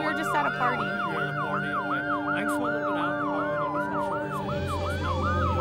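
Emergency vehicle sirens: one in a fast yelp, about three or four sweeps a second, over a second in a slow rising and falling wail. A low steady rumble comes in near the end.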